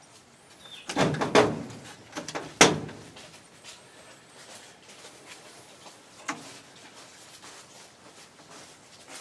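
A cluster of loud knocks and clattering bangs about a second in, one sharper and louder bang soon after, then a few light clicks and taps, like hard objects being handled and knocked about.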